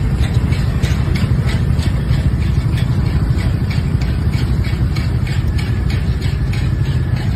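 Idling scooter and car engines in stopped traffic on a bridge: a loud, steady low rumble with a rapid ticking several times a second.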